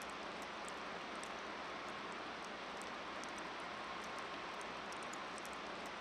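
Steady, even outdoor hiss, with many faint, very short high ticks scattered through it.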